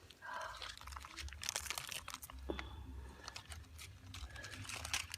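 Crisp crunching and crackling, with many small clicks, as charred roast fish is broken open by hand, over a low rumble.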